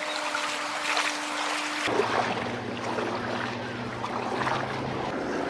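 Water and wind noise around a kayak on open sea, under a steady hum that drops abruptly to a lower pitch about two seconds in.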